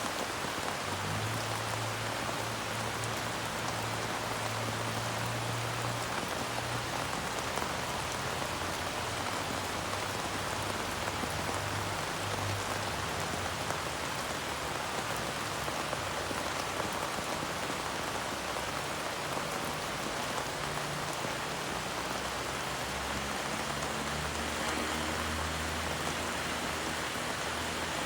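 Steady rain falling and pattering on surfaces, an even dense hiss of drops with no let-up. A low hum comes and goes underneath.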